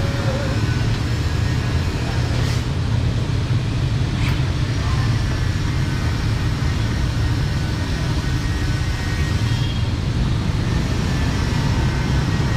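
Street traffic: a steady low rumble of passing motor vehicles, with two brief sharp clicks, one about two and a half seconds in and one about four seconds in.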